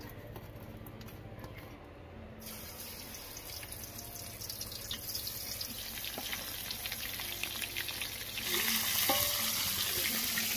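Fish pieces rubbed with salt and turmeric sizzling as they fry in hot oil in an aluminium kadai. The sizzle starts a couple of seconds in and grows louder near the end.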